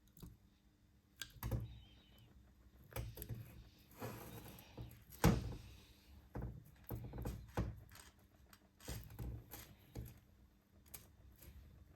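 Irregular knocks, clunks and clicks of metal parts and hand tools being handled, with one louder knock about five seconds in.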